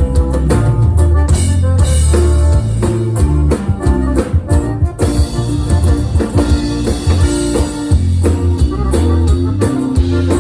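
A band playing an instrumental passage at rehearsal: guitar over a steady bass line and drum kit, with cymbals ringing in the middle.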